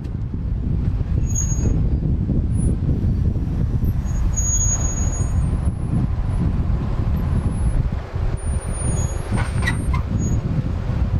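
Jeep's engine running at crawling speed as it works down a rocky trail ledge, a steady low rumble, with a few faint short high squeaks and a brief sharp sound about nine and a half seconds in.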